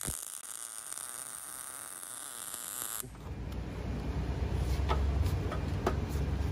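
MIG welding: a steady hiss for about three seconds, then a louder low buzzing crackle from the arc, with scattered sharp ticks, as short tack welds are laid on the mounting nuts.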